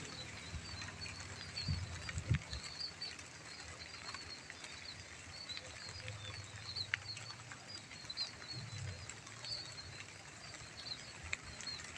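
Light drizzle on rice paddies: a steady soft hiss with scattered small drip clicks. Rapid high chirping calls run over it, with a few faint low thumps in the first few seconds.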